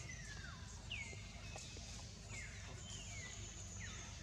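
Animal calls: a string of high, thin cries that each slide downward in pitch, coming about once a second and overlapping, with a steady high whistle for about a second near the end. A low steady hum runs underneath.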